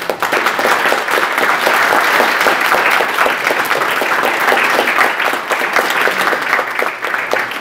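Audience applauding: many hands clapping in a dense patter that starts suddenly and thins out near the end.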